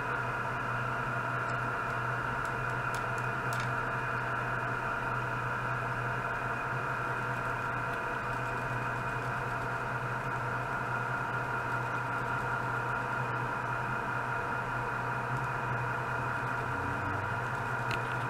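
A steady electronic hum and hiss, with several constant tones held underneath it and no change in level throughout. A few faint clicks come about three seconds in and again near the end.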